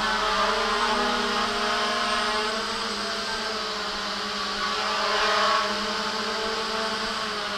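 JJRC X1 quadcopter's brushless motors and propellers buzzing steadily while it hovers, the pitch wavering slightly up and down as the throttle changes.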